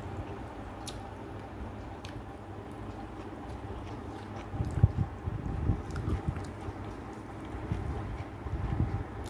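A person chewing a mouthful of rice and chicken curry eaten by hand, with soft irregular chewing sounds that grow louder in the second half.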